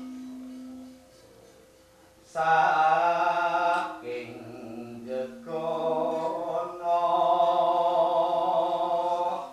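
A lingering gamelan tone fades out in the first second. Then, after a brief lull, a male voice sings long, wavering solo phrases in Javanese gamelan style, with a short break about four seconds in.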